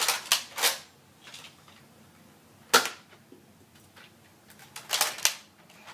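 Nerf blaster being primed and fired at targets: sharp plastic clacks and spring-air shots. Three come in quick succession at the start, one lands near the three-second mark, and a quick cluster comes near the end.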